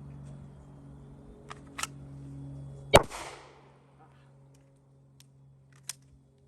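A single handgun shot about three seconds in, a sharp crack with a short fading tail, with a couple of small clicks before and after it.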